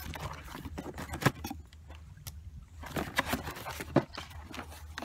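A knife slitting the packing tape on a cardboard shipping box, then the cardboard flaps being pulled open: scratchy cutting and rustling with sharp cardboard knocks about a second in and again about four seconds in.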